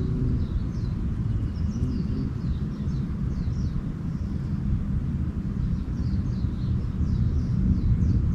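Small birds twittering in many short, falling chirps over a steady low rumble, which is the loudest sound.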